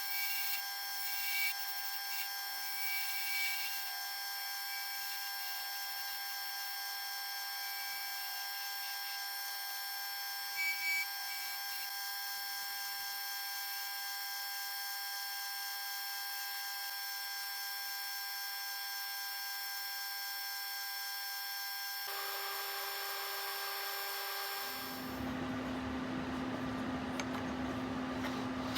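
Small electric power tool motor running at a steady high pitch, with a few short louder bursts. Near the end it changes, a low hum comes in, and quick repeated rubbing strokes begin.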